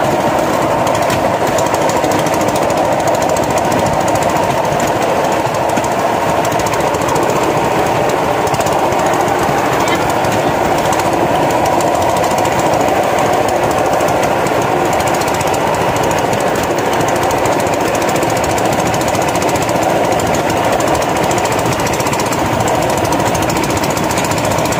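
Rail trolley rattling along railway tracks: a loud, steady, rapid mechanical rattle that does not let up.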